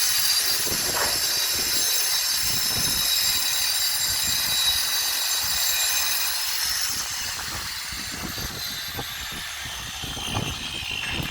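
Electric power tool running with a high-pitched whine and a rasping hiss; over the last few seconds its whine falls slowly in pitch and the level drops as it winds down.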